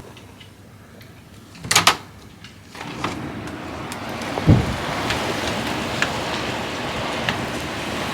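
A short sharp clatter about two seconds in, then from about three seconds a steady loud rush of blizzard wind, with a low thump of a gust hitting the microphone midway.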